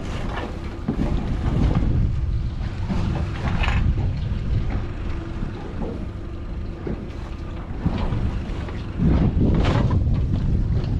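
Wind buffeting the microphone on an open boat deck, with a low rumble and scattered knocks and clatter of handled gear; the loudest clatter comes about nine seconds in.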